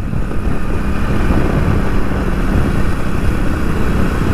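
Motorcycle cruising at a steady speed of about 55–60 km/h: a steady engine hum under a continuous rush of road and wind noise.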